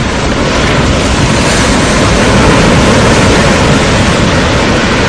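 Strong sea wind buffeting the microphone in a loud, steady rush, with waves breaking on the beach underneath.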